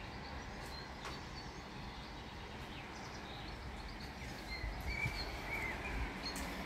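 Faint outdoor ambience: a steady low rumbling hiss, with small birds chirping faintly now and then, mostly in the second half.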